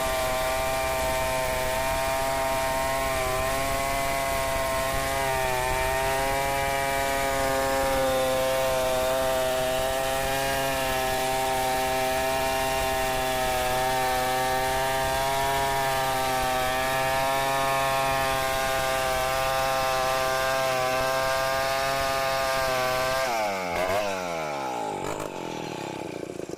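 Stihl 070 two-stroke chainsaw running at full throttle while ripping a log lengthwise, its engine note wavering slightly under load. Near the end the throttle is released and the engine winds down sharply.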